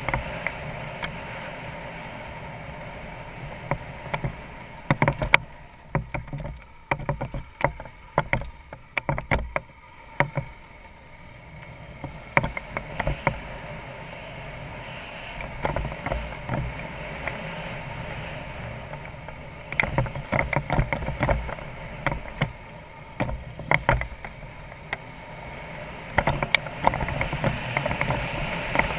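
BMW F650GS Dakar's single-cylinder engine running steadily at low speed on a rough dirt track. Sharp clattering knocks come in bursts from about five to eleven seconds in and again from about twenty seconds in.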